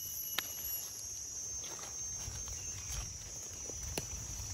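Steady high-pitched chirring of insects, with low rustling in the leaf litter and two sharp clicks, about half a second in and near the end, as red bolete mushrooms are cut with a knife and handled.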